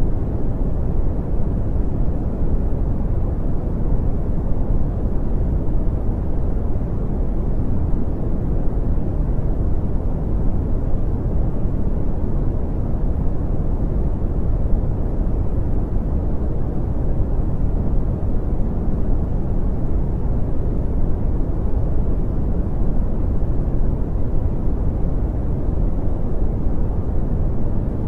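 Brown noise: a steady, deep rushing hiss, heaviest in the bass and dull in the treble, with no change.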